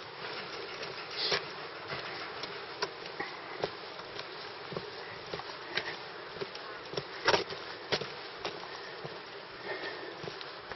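Steady rushing of the Colorado River below a suspension footbridge, with irregular knocks of footsteps on the bridge deck.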